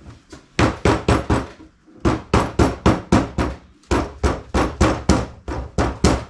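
Hammer blows in quick runs of four or five strikes, about four a second, with short pauses between runs.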